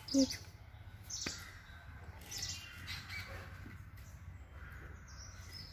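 Birds chirping and squawking, several short high calls scattered through, with one brief louder pitched call just after the start and a low steady hum underneath.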